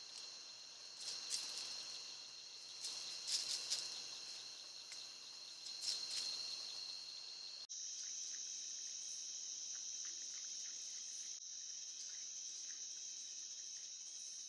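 Night insect chorus trilling steadily. A few short rustles come in the first half. About eight seconds in the chorus changes abruptly to a higher, louder trill.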